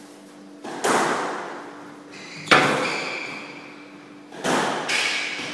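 Squash ball being struck during a rally: three loud smacks about two seconds apart, each echoing around the walls of the court.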